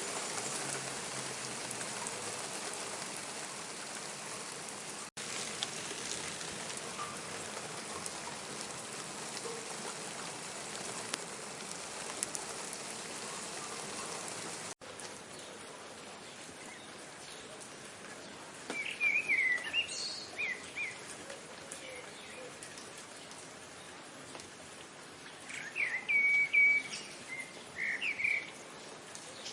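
Steady rain falling, an even hiss that cuts out for an instant twice and is quieter over the second half. In the second half a bird calls twice in short bursts of sharp, quick chirps.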